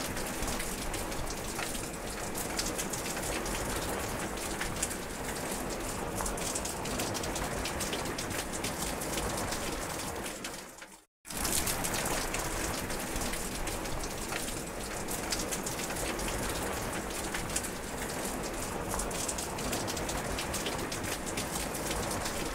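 Steady rain falling, a dense hiss made of many fine drop ticks. About halfway through it fades out to silence for a moment, then comes straight back.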